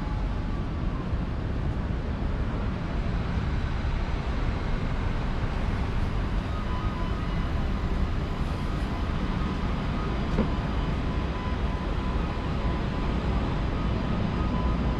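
Steady low rumble of vehicles on a busy city street. From about six seconds in, a faint high electronic tone pulses over it.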